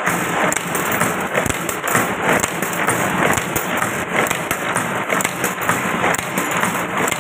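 Automatic S-hook wire forming machine running, its cam-driven levers and forming tooling clattering with a fast, continuous run of metallic clicks and knocks.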